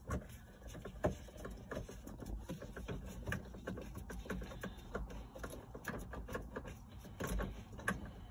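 Hand ratchet with a Torx T40 bit clicking in quick, uneven runs while backing out a bolt, with one louder click about a second in.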